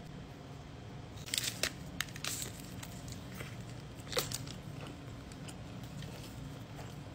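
Biting into and chewing a Taco Bell grilled cheese burrito's toasted, cheese-crusted tortilla: a run of crisp crunches about a second in and one sharp crunch about four seconds in, over a low steady hum.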